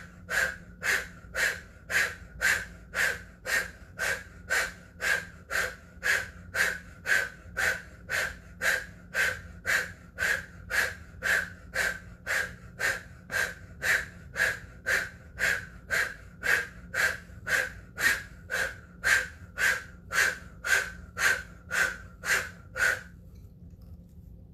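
A woman breathing forcefully and rhythmically through the mouth, about two breaths a second, while doing the vigorous fist-swinging of the Kundalini Fists of Anger kriya. The breathing stops abruptly about a second and a half before the end.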